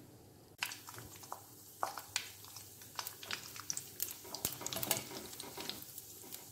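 Cashew pieces frying in hot ghee in a kadai, sizzling with many small irregular crackles as a silicone spatula stirs them. The crackling starts about half a second in.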